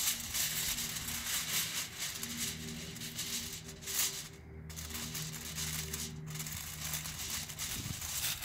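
Background music with a short repeating melody, over a steady crinkling of aluminium foil being spread and pressed down by hand.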